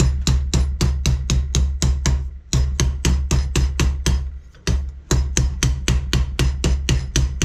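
Background music with a fast drum beat and a steady bass line, which drop out briefly twice.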